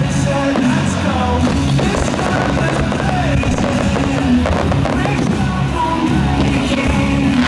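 Loud music playing continuously, with fireworks bursting at intervals through it.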